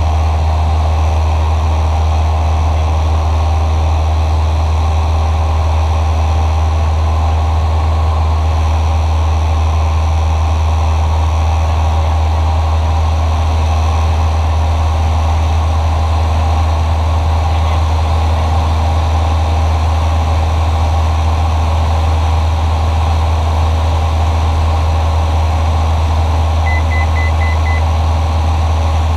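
Cessna 172SP's four-cylinder Lycoming IO-360 engine and propeller running steadily at cruise, a constant loud drone heard inside the cockpit. Near the end a short run of about five quick high beeps sounds over it.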